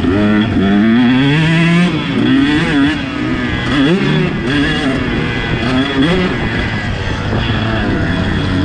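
KTM 150SX two-stroke single-cylinder motocross engine under hard riding, its pitch rising and falling back again and again with the throttle.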